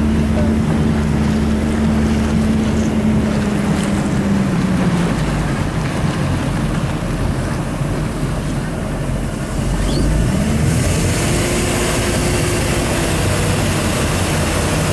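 Motorboat engine running with wind noise on the microphone and rushing water; the engine note drops off about four seconds in, then climbs again about ten seconds in as the boat speeds up towing the tube, and the wind and water hiss grows louder.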